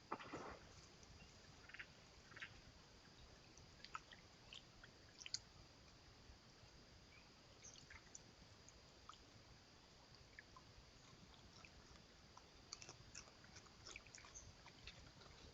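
Faint, scattered crunches and clicks of an animal feeding and moving close to a trail camera, over a faint steady high whine.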